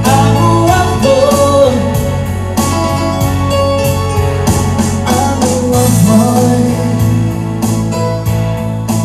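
Live reggae band playing: keyboards, bass and drums with a regular beat, and a man singing over them.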